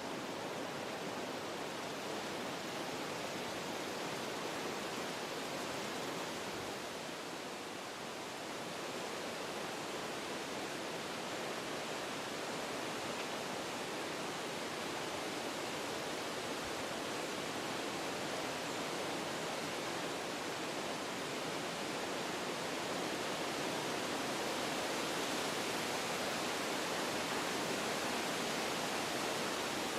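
Wind blowing through forest trees, a steady rushing of leaves and branches that eases briefly about eight seconds in and then builds a little stronger toward the end.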